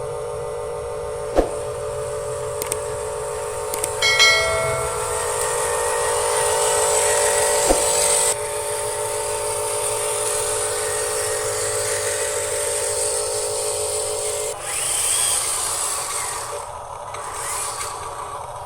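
Remote-control model construction vehicles running: a steady electric motor and gear whine that shifts pitch a couple of times. A short horn-like tone comes about four seconds in, and there are a couple of sharp clicks.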